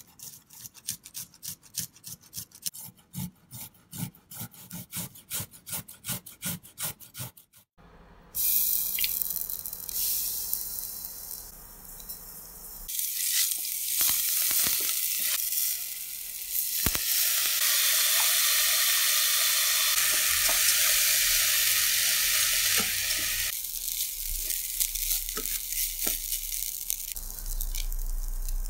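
Garlic grated on a stainless steel fine rasp grater, quick rhythmic rasping strokes for the first several seconds. Then grated garlic and ginger sizzling in hot oil in a pot, which grows louder and steadier with occasional scrapes and clicks of stirring as rice is fried in it.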